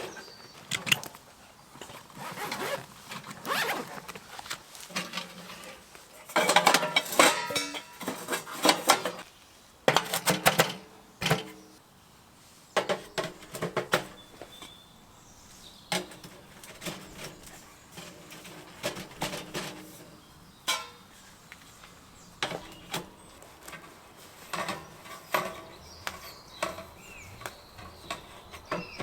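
Irregular rustling, knocks and clattering of camping gear being handled during setup, with some metallic clinks, busiest between about six and twelve seconds in.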